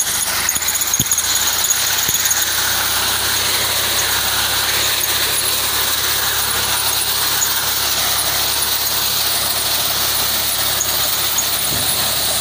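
Fiat 480 diesel tractor running with its reaper cutting through standing fodder crop: a loud, steady machine noise with a strong high-pitched hiss and whine over it.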